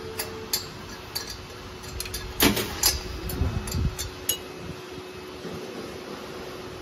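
Stainless steel powder hopper of a ZS-AFS210 powder packaging machine clinking and knocking against its metal mount as it is worked free by hand: scattered light clicks, with the loudest knocks about two and a half and three seconds in.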